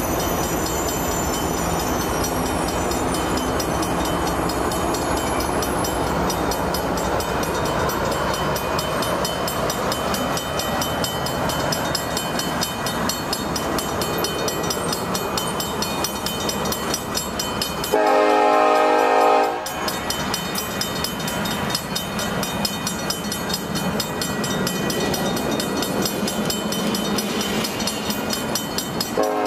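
Passenger cars of a Union Pacific business train rolling past, with steady wheel-on-rail noise and regular clicks over rail joints, and a faint high squeal fading out in the first few seconds. About 18 seconds in, the train's locomotive horn sounds once for about a second and a half, the loudest sound here. Another blast starts at the very end.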